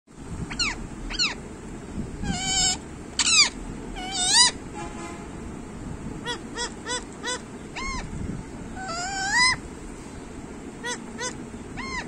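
Male rose-ringed (Indian ringneck) parakeet calling at close range: a string of loud, harsh screeches and shorter arched squawks, with a quick run of about six short chirps around the middle.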